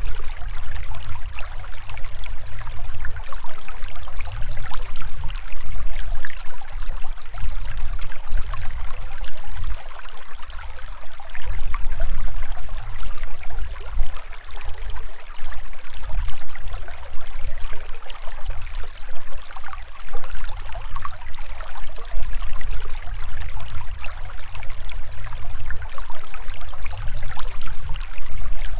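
Shallow, rocky stream rushing and splashing over stones close to the microphone: a steady hiss of running water over an uneven low rumble.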